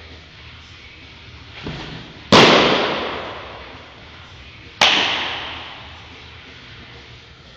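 Baseball pitches smacking into a leather glove: a soft thump, then two sharp pops about two and a half seconds apart, the first the louder, each echoing for a second or more in the large hall.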